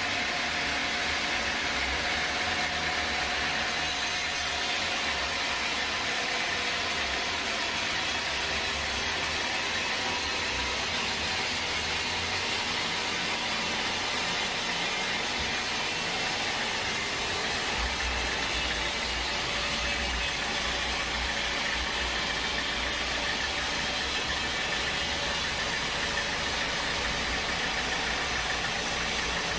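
Sawmill machinery running steadily: an engine drone under a constant hiss, with the low rumble strengthening about two-thirds of the way through.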